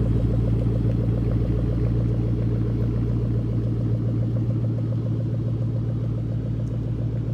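2013 Shelby GT500's supercharged 5.8-litre V8 running at idle through a Magnaflow off-road race exhaust, a steady deep pulsing burble with no revving. It fades a little as the car moves off at low speed.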